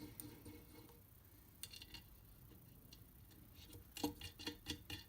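Faint clinks and small rattles of metal mounting hardware, washers and fittings, being handled. There are a few clicks about two seconds in and a quicker cluster near the end.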